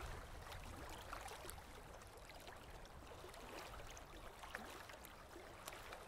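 Faint underwater reef ambience: a low, even water murmur dotted with many small, irregular clicks and crackles.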